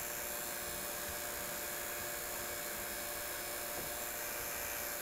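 Refrigerant vacuum pump running steadily, a constant hum with a hiss on top, as it pulls a deep vacuum on a mini-split's line set down to about 100 microns.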